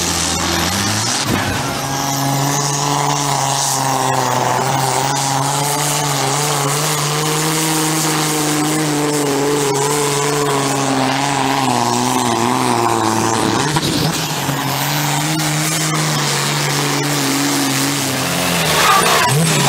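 Diesel engines of modified pulling tractors running at full throttle under heavy load while dragging a weight-transfer sled. Each holds a steady pitch, and the sound changes abruptly about a second in, again near 14 seconds and near the end as one tractor's pull gives way to another.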